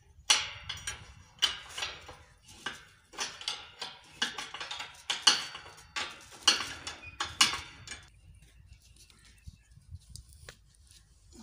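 Steel spanner clinking against the bolts and flange of a tube-well pipe joint as it is unbolted: a run of sharp metallic clinks for about eight seconds, then quieter, with one more click near the end.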